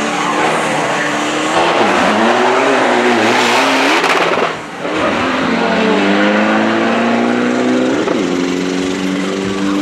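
Isuzu D-Max turbo-diesel pickup engines revving hard on a drag strip, the pitch climbing in long rises. The sound drops briefly about four and a half seconds in, and the pitch dips near eight seconds before climbing again.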